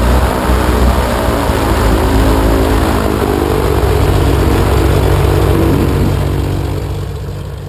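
A propeller aircraft engine running loudly, a steady drone over a rushing noise, fading out near the end.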